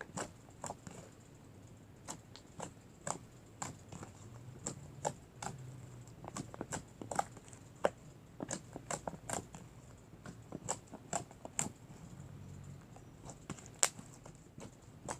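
Fingers poking slime, giving irregular small clicks and pops, a few a second.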